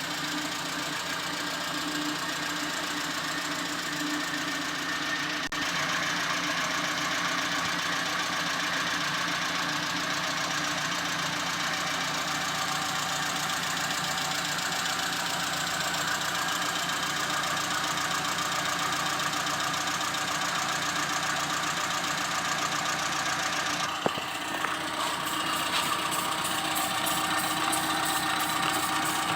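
Suzuki Karimun Kotak's freshly overhauled engine running steadily, with one sharp click about four-fifths of the way through.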